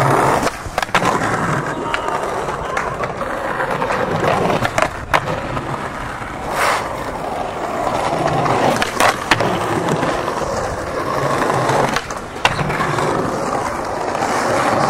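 Skateboard wheels rolling over a paved stone-tiled plaza, a steady rolling rumble broken by a number of sharp clacks.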